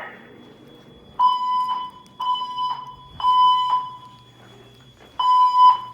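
Wheelock E70 speaker strobes on a Silent Knight IFP-100 voice evacuation system sounding the temporal-3 evacuation tone. Three loud, steady beeps come about a second apart, then a pause, then the next group begins near the end.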